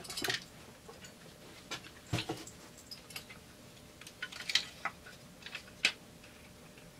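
Scattered light clicks and taps of chainsaw parts being handled and fitted on a Husqvarna 350 during reassembly, with a duller knock about two seconds in.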